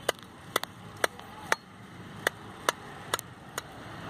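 Machete chopping the ends of a bundle of dry broom grass against a wooden log: about ten sharp chops, roughly two a second.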